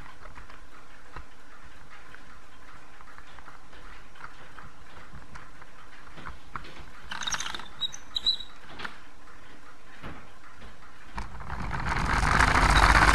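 VEX Robotics Gear Racer rubber-band car: faint clicks from its plastic gear train as it is wound, with a few sharper clicks partway through. About eleven seconds in it is let go and its gears and wheels set up a fast, pulsing whirr that grows louder as the car runs across the floor toward the microphone.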